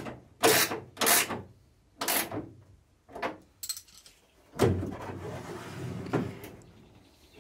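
Metal-on-metal clicks and knocks as a boot-lid stay is fitted to its mount with hand tools: several short knocks in the first couple of seconds and a few sharp clicks, then a longer stretch of handling noise with one more knock about six seconds in.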